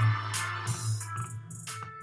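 Background music with a strong bass line and a regular beat, fading out.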